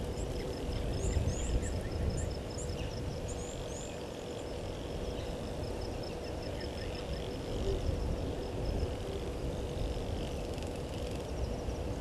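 Outdoor bush ambience: a low rumbling noise with small birds chirping high in short bursts, mostly in the first few seconds. A rapid, even run of high ticks, about five a second, goes on until near the end.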